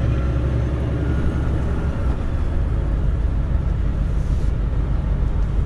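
Truck's diesel engine running at low speed, heard from inside the cab as a steady low rumble while the truck rolls slowly.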